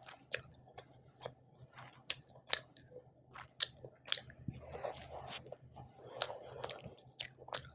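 Close-miked chewing of rice, egg curry and fried hilsa fish: wet, irregular mouth clicks and smacks with a few brief crunchy bites.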